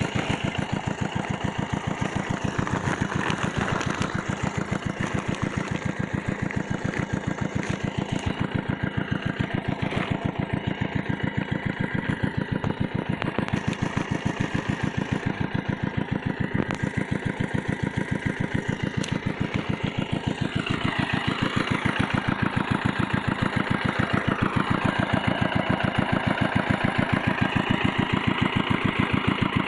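Small engine of a water pump draining a pond, running steadily with a fast, even beat.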